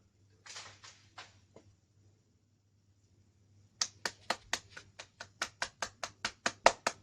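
A short scuffle of rustling, then from almost four seconds in a fast, even series of sharp hand slaps, about four a second.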